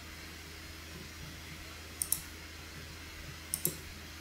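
Computer mouse button clicked twice, about two seconds in and again a second and a half later; each click is a quick double snap. A steady faint low hum runs under the clicks.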